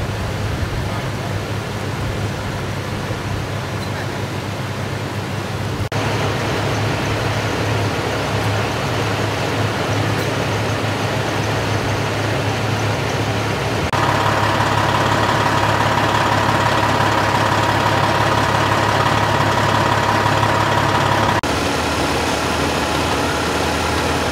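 Engines of parked emergency vehicles idling: a steady low hum. The sound changes abruptly a few times, and is loudest for several seconds past the middle, where a steady mid-pitched drone joins in.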